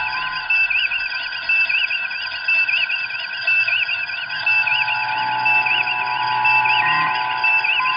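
Synthesized electronic sci-fi sound effect: a high warbling tone pulsing about once a second over a bed of steady humming tones, like a ship's alarm or console signal.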